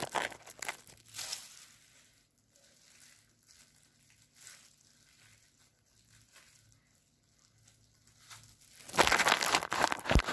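Crinkling and rustling of crinkly wrapping being handled while the cake is cut: brief bursts near the start, quieter handling in the middle, and a louder crinkling stretch of about a second and a half near the end.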